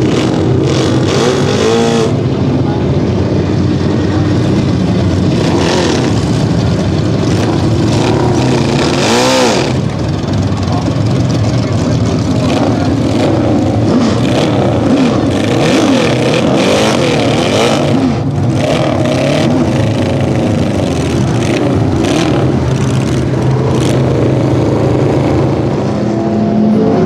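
Several race cars' engines running and revving on the track, one car passing close by about nine seconds in with a rise and fall in pitch.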